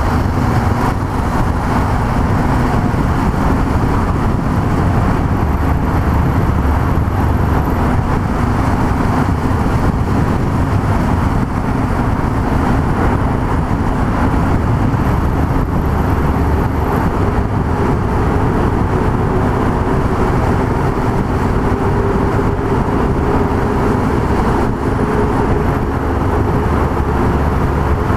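Yamaha MT-03's 660 cc single-cylinder engine running steadily at road speed, with wind rush, inside a long road tunnel. The engine note climbs a little near the end.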